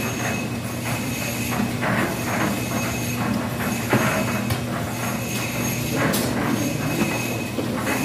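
A machine running with a steady drone, under scattered metal clanks and knocks of construction work. The sharpest knocks come about four seconds in and again about six seconds in.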